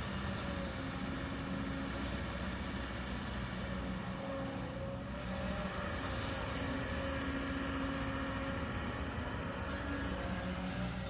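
Kobelco hydraulic excavator's diesel engine running steadily under work, its hum shifting slightly in tone as the hydraulics load it.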